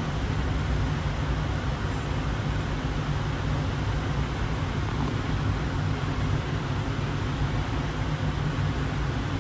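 Steady low rumble and hiss of a Sound Transit Series 2 light rail train running slowly, heard from inside the car.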